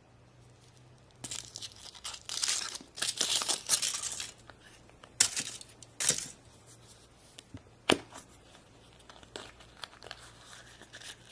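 Foil wrapper of a Kinder Surprise chocolate egg being torn and crinkled by hand for a few seconds, followed by a few sharp snaps and clicks as the egg and its plastic toy capsule are opened.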